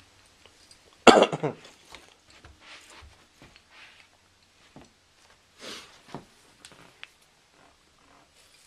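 A person coughing sharply about a second in, with softer cough-like sounds near the six-second mark and faint small handling noises in between.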